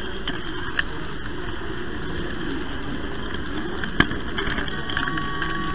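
Model train rolling along the layout's track, heard from a camera riding on it: a steady rolling rumble with a few sharp clicks, the loudest about four seconds in.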